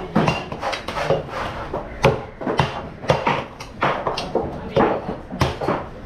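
Heavy cleaver chopping a golden trevally on a thick wooden chopping block: a run of sharp chops and knocks, a little over two a second at uneven spacing, each with a short ring.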